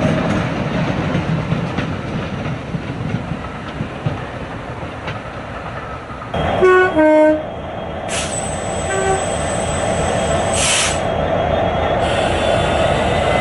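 Diesel locomotive running past, with a steady rumble, and sounding its two-tone horn about six seconds in: a short higher note, then a lower one. Later a high, steady squeal lasts about three seconds.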